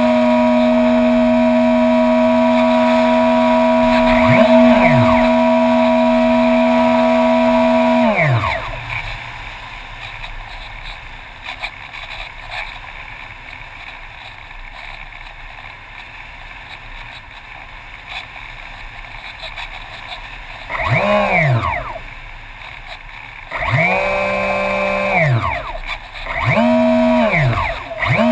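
RC model airplane motor, heard close from on board, running steadily at high throttle, then throttled back after about eight seconds into a quieter glide with air rushing past. Near the end it gives several short bursts of throttle that rise and fall in pitch.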